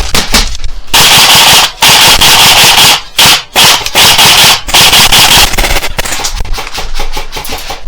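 Airsoft electric gun firing on full auto in several long bursts, starting about a second in, with short breaks between them. The rattle is loud and close to the microphone.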